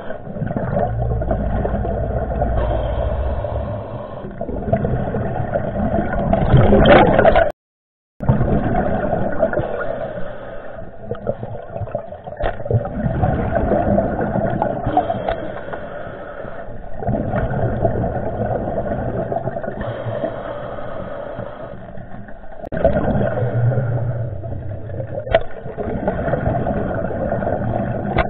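Muffled, steady water noise with a droning motor-like hum, cut off abruptly for under a second about eight seconds in.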